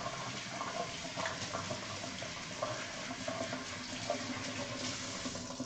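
Kitchen tap running steadily into a stainless steel sink while hands are washed under it.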